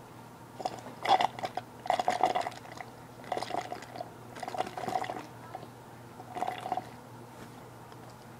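Water being sucked up through a pair of plastic novelty straw glasses, in about five short slurps spaced a second or more apart.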